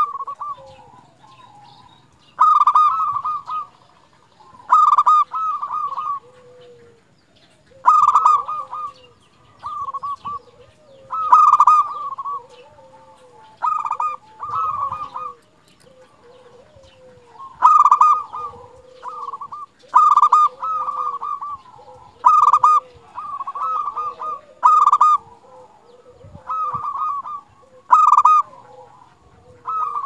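Zebra dove (perkutut) singing: short phrases of rapid, stuttering coos, about one every two to three seconds, with fainter, lower coos between them.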